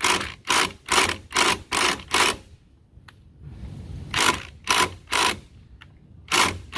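Repeated sharp metallic taps, about two a second, as a part of a scooter variator assembly is knocked into place: a run of six, a pause of about two seconds, then three more, with the tapping starting again near the end.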